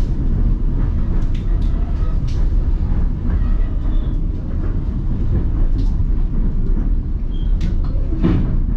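Passenger train running, heard from aboard: a steady low rumble with a few short sharp clicks scattered through it.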